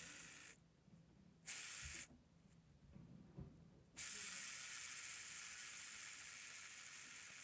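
Fidget spinner whirring, with loose ball bearings rolling around the inside of its rim and adding to the noise. Two short bursts of whirring come first, then from about four seconds in a long, steady whir that fades only slightly.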